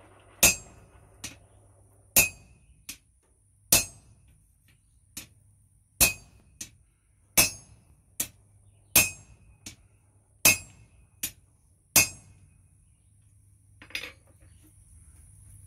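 Blacksmith's hand hammer striking an iron rod on an anvil: eight heavy blows about a second and a half apart, each followed by a lighter tap, each with a short ring. The blows stop about twelve seconds in, with one softer clink near the end.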